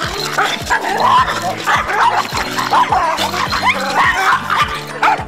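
A small dog barking and yipping repeatedly, over background music with a steady beat.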